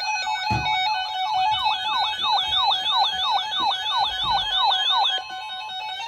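Weather alert radios sounding their warning siren: a fast warble rising and falling about four times a second over steady beeping tones, stopping about five seconds in. It signals a new severe thunderstorm warning.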